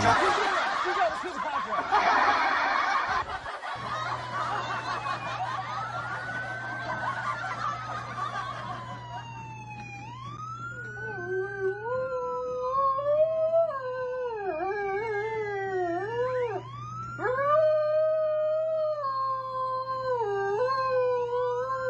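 A siren wailing in long falling sweeps, then, about ten seconds in, a dog taking it up with long wavering howls that run on, breaking briefly for breath. The first few seconds hold a loud burst of rough noise.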